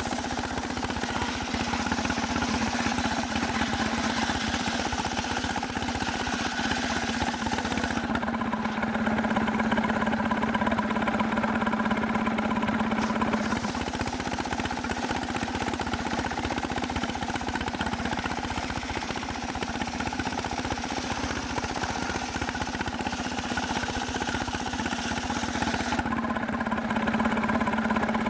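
Engine of a sawmill running steadily with an even hum; the upper part of the sound changes twice, at about eight seconds in and again near the end.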